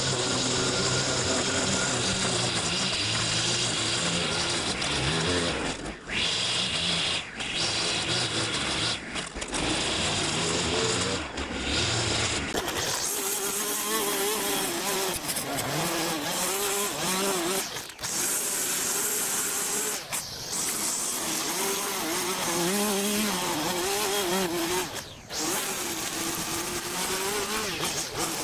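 Petrol line trimmer running at high revs, its nylon line cutting long grass along the edge of a concrete path. The engine pitch wavers and the throttle eases off briefly several times before revving up again.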